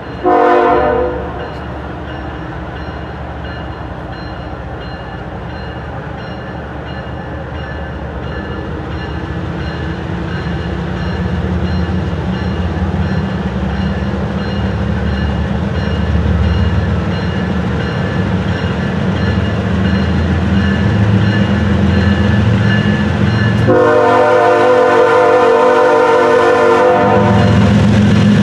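CSX diesel locomotive approaching with its engine rumble building steadily louder. The horn sounds a short blast right at the start and a longer blast of about three seconds near the end.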